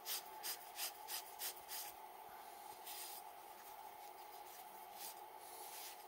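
Cloth rubbing a 3D-printed metal ring by hand: quick swishes about three a second for the first two seconds, then two slower strokes. A steady faint hum runs underneath.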